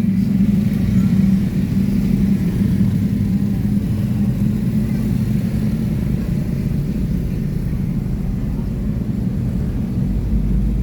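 Large bus engine running with a steady low rumble, a little louder for the first second and a half.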